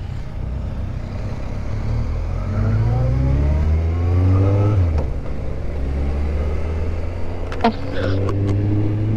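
Motorcycle engine pulling up through the revs, pitch climbing for a few seconds, then dropping at a gear change about five seconds in and pulling steadily again, over low wind rush.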